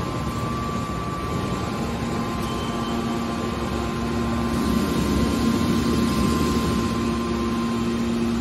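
Hydraulic scrap-metal baler's power pack running with a steady hum and whine while its hydraulic cylinders raise the press lid. It grows a little louder about halfway through.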